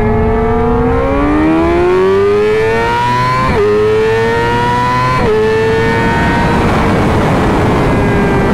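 Sportbike engine accelerating through the gears: its note climbs, drops sharply at each upshift about three and a half and five seconds in, then holds steady as rushing wind noise builds.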